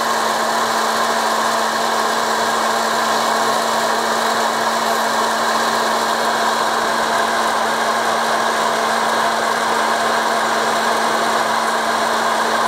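Hot-air popcorn maker's blower fan running steadily with a constant low hum, blowing hot air over corn kernels that have not started popping yet.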